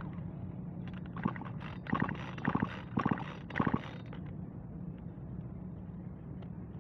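A chainsaw's recoil starter is pulled in several quick tugs, spinning the two-stroke engine over with its spark plug out and grounded on the cylinder to check for spark. A steady low hum runs underneath.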